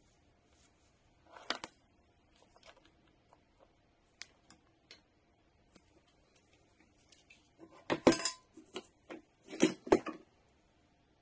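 Small metal tools and parts clinking and clattering on a workbench, with scattered light clicks and two louder bursts of clattering in the last few seconds.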